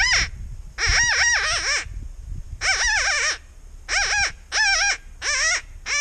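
Predator call imitating a distressed rabbit: a run of loud, wavering squealing cries, about half a dozen, each half a second to a second long with short gaps, sounded to lure in coyotes.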